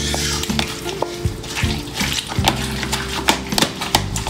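Wet squelching and slapping of hands squeezing and kneading seasoned raw chicken in a plastic bowl, with many short sharp squishes, over background music with low held bass notes.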